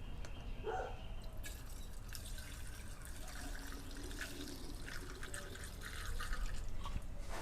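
Fresh gasoline being poured into the fuel tank of an Echo CS400 chainsaw, a faint, uneven pouring of liquid.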